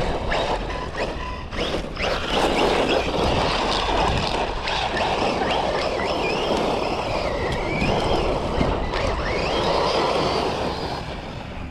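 Losi Lasernut U4 1/10 brushless RC car driven hard: the motor whines, rising and falling in pitch with the throttle, over the scrabbling noise of the tyres on gravel. The drivetrain is failing under the strain; the owner blames the original rear ring gear.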